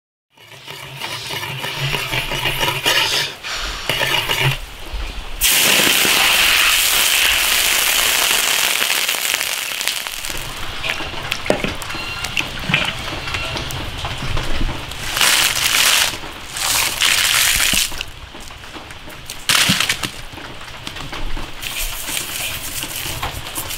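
Food frying in hot oil in an iron wok, sizzling and crackling. The hiss comes in suddenly and loud about five seconds in, then eases and swells again in waves.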